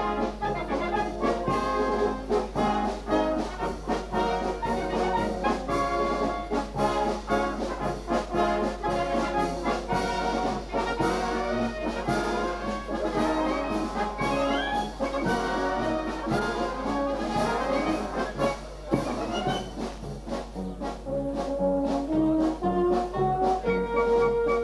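Wind band playing live: tubas and other brass together with flutes and clarinets, a full tune with a steady beat. It softens for a few seconds in the last third and swells again near the end.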